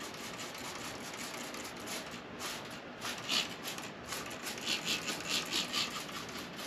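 Hand trigger spray bottle misting liquid onto a vinyl cushion: short hissing squirts, a few spaced out and then a quick run of them about five seconds in.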